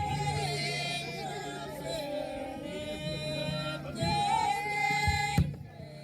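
Background music: a voice singing a wavering, ornamented melody over a steady low drone, with a sharp hit about five and a half seconds in.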